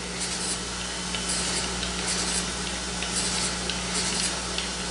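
Surface grinder's wheel running with a steady hum as it takes a very light finish pass across a steel block, with soft hissing that swells and fades repeatedly as the wheel skims the surface. Few sparks are thrown, a sign the pass is cutting only the couple of ten-thousandths that was set.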